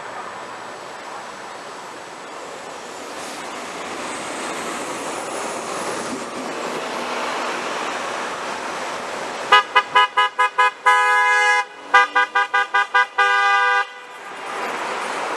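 Passing car traffic, then about nine and a half seconds in a car horn honks for about four seconds: a rapid string of short toots, broken twice by a longer blast.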